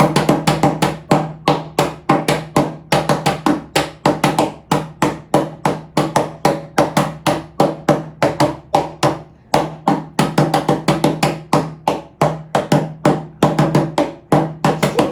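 Hands drumming on a tabletop, tapping out a song's rhythm as a fast, uneven run of knocks, about four to five a second, with a short break about nine and a half seconds in.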